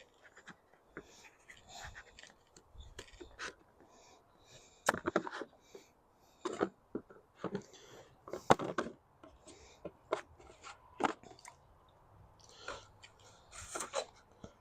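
Knife cutting through raw sweet potato: irregular crisp crunches and knocks, the loudest about five and eight and a half seconds in.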